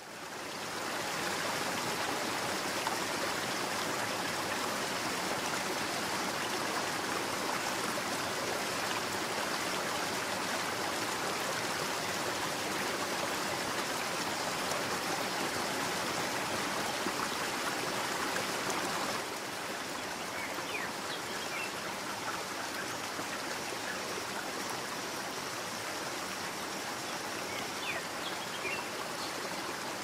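Steady rushing of a flowing stream. About two-thirds of the way through it drops slightly in level, and a few faint, short, high chirps come over it.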